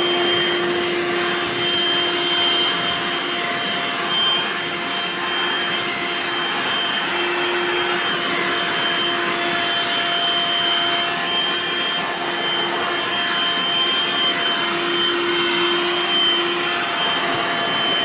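BLACK+DECKER Dustbuster HHVI315JO42 cordless lithium handheld vacuum running steadily, a constant motor whine over a rush of air, as it sucks popcorn, chip crumbs and dust off carpet.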